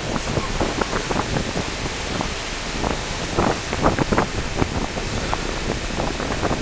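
Wind buffeting the microphone over water churning and splashing alongside a moving harbour ferry, with irregular gusts and splashes.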